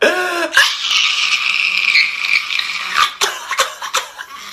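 A man crying and wailing loudly: a short voiced cry, then a long strained, high wail that breaks up a few times near the end.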